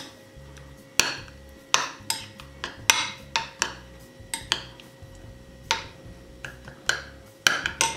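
Metal teaspoon stirring an oil dressing in a small glass bowl, clinking against the glass in irregular taps, about two a second, some with a short ring.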